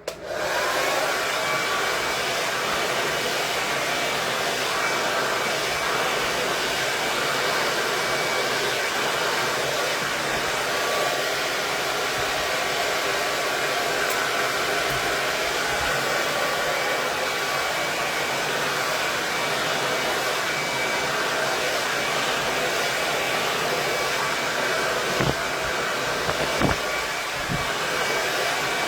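KISS 1875-watt Pro tourmaline ceramic hair dryer switched on, spinning up in the first second and then running steadily with a faint high whine over the rush of air. A few light knocks come near the end.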